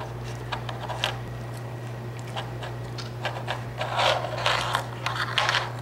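Husky puppy nosing and licking a fortune cookie on a wooden floor: scattered small scrapes, scratches and clicks of the cookie against the boards, busier from about three seconds in.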